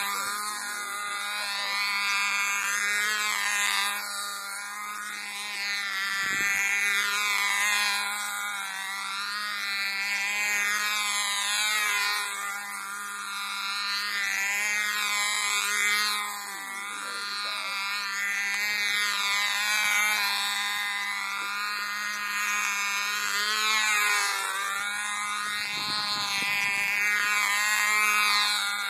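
Small Cox model-airplane engine running flat out with a high-pitched buzz as the control-line plane circles, its pitch and loudness rising and falling about every four seconds as it sweeps past.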